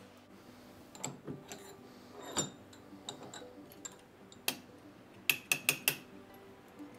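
Metal parts being handled: scattered sharp clicks and knocks, then four quick ringing metallic taps about five seconds in. Faint background music runs underneath.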